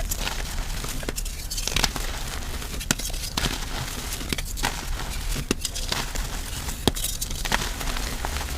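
Chalk being crushed: continuous crunching and crumbling, broken by sharp snaps every second or so as pieces break.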